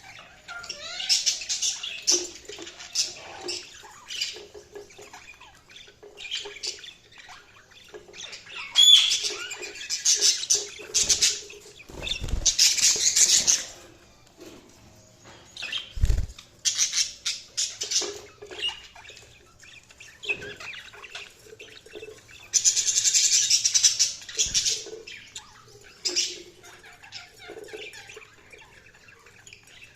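Budgies chirping and warbling in bursts of quick, high twittering with short pauses between. A few low thumps come in, around the middle.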